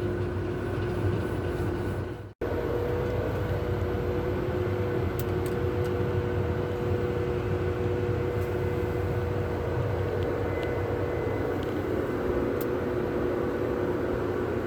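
Combine harvester running steadily: a low engine drone with a steady whine over it. The sound cuts out for an instant about two seconds in.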